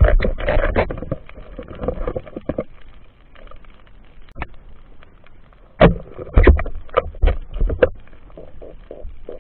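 Muffled knocks and clicks heard underwater, in a dense cluster right at the start and another from about six to eight seconds in, with faint scattered ticks between.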